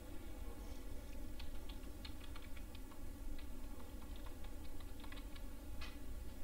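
Computer keyboard typing: scattered, irregular keystrokes over a steady low background hum.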